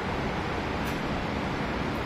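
Steady, even rushing noise with a couple of faint ticks.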